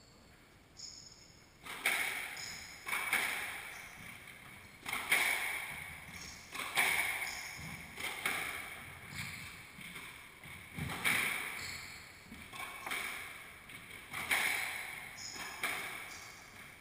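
Squash rally: the ball is struck and hits the walls about once a second, each sharp crack ringing on in the enclosed court.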